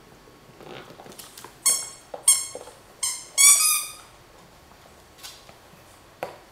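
A dog's squeaky toy squeaking four times as a small dog chews on it. The first three squeaks are short and the fourth is longer, louder and slightly rising in pitch. A few light knocks come in between.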